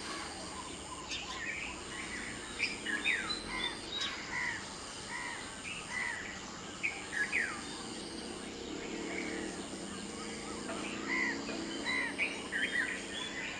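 Dawn chorus of several small birds chirping and singing: many short chirps and a few quick falling whistles, over a steady high-pitched tone.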